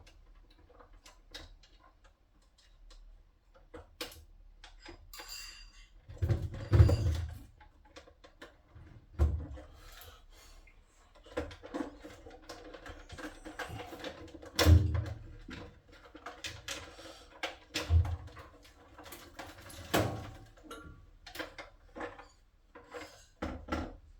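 Hands and tools working on boiler parts: a run of irregular clicks, knocks and rattles, with several heavier thumps spread through it.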